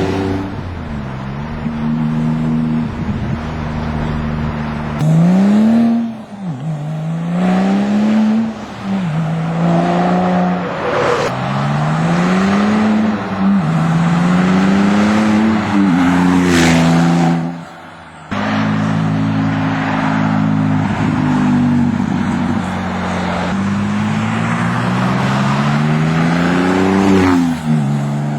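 Porsche 997 Turbo's twin-turbo 3.6-litre flat-six, breathing through Fabspeed muffler bypass pipes and sport cats, pulling hard through the gears. The engine note climbs, drops at each upshift and climbs again several times. It falls off briefly about two-thirds of the way through.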